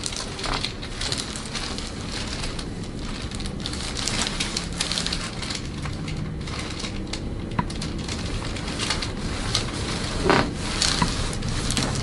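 Steady crinkling and rustling made of many small irregular crackles, as a patient is handled and settles on a chiropractic treatment table. There is one louder knock about ten seconds in.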